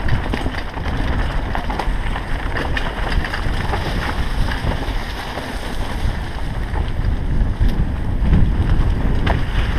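Downhill mountain bike rolling fast over a rocky trail covered in dry leaves: tyres on dirt and leaves, with frequent rattles and knocks from the bike over the bumps. Heavy wind rumble on the GoPro's microphone.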